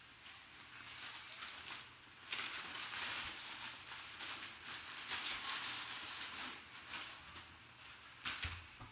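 Rustling and light handling noises of packaging being moved about by hand, louder from about two seconds in and fading near the end.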